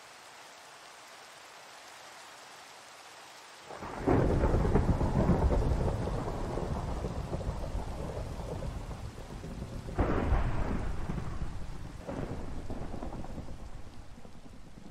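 Thunderstorm: steady rain, then a loud thunderclap about four seconds in that rolls on as a long rumble. A second sharp crack of thunder comes about six seconds later, with a weaker one shortly after, and the rumble fades near the end.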